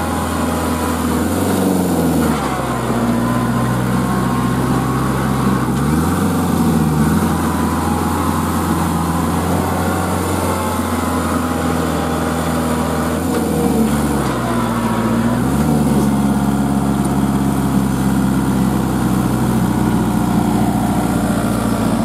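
Kubota L4508 4x4 tractor's diesel engine running hard under load while stuck in mud, its engine speed falling and rising again several times.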